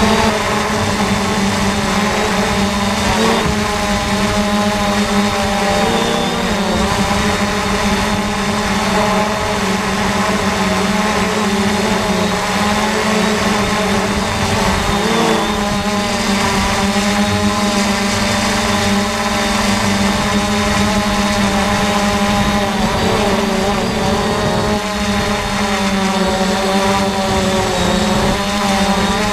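Multirotor drone's motors and propellers whining steadily, heard from the drone itself, the pitch wavering slightly as the throttle changes.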